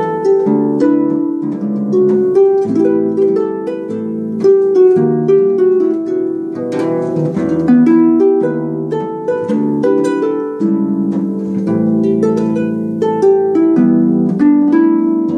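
Solo concert harp playing a jazz arrangement: plucked melody notes over chords in the low and middle strings.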